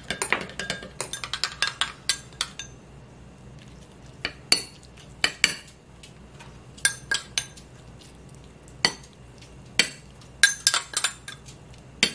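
Metal spoon clinking against a small glass bowl: a quick run of light clinks while stirring over the first couple of seconds, then scattered taps and scrapes as the mixture is spooned out of the bowl onto a plate.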